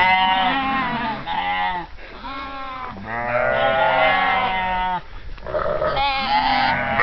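Devon and Cornwall Longwool sheep bleating, one call after another with only short breaks, each call wavering in pitch.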